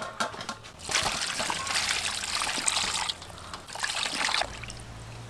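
Water splashing and trickling in an aluminium basin as a whole plucked duck is lowered in and washed by hand. The splashing stops abruptly about four and a half seconds in.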